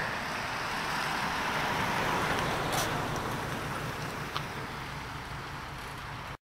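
Hot-rodded 1931 Ford Model A coupe, fitted with a 4.3-litre V6 and dual exhaust, driving past. Its low engine rumble and road noise grow louder, then fade away. The sound cuts off suddenly near the end.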